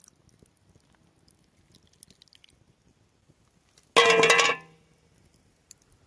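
A loud metallic clank with a short ringing rattle about four seconds in, lasting about half a second: an enamel bowl knocked down onto stone.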